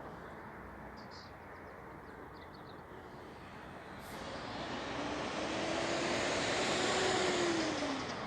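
An engine passing by: a steady rushing noise swells to a peak in the second half, with an engine tone that drops in pitch as it goes past.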